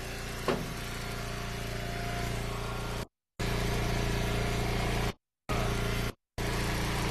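Gas engine of an Eastonmade Ultra log splitter running steadily at idle, with a single knock of split wood about half a second in. The sound cuts out completely three times for a fraction of a second, dropouts in the live-stream audio.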